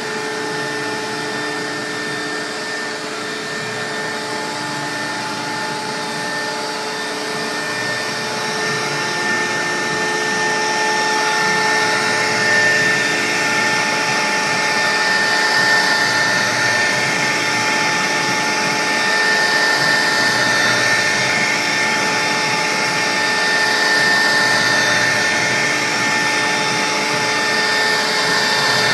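CNC router cutting a sign: a steady spindle whine over rough cutting noise, getting louder about ten seconds in.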